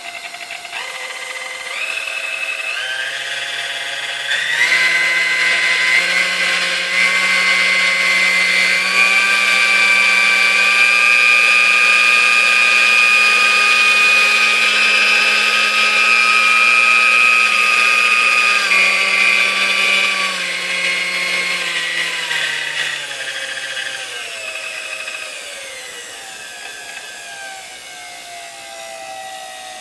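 Dormeyer 4300 Silver Chef mixer's electric motor running with a whine, switched up through its speeds in steps over the first nine seconds, held at top speed, then stepped back down and winding down near the end. It is the freshly serviced mixer's test run.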